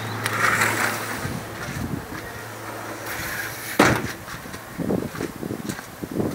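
Aluminium-framed glass sliding shop door being slid open, with a single sharp knock about four seconds in. A steady low hum stops about a second in, and uneven rustling follows.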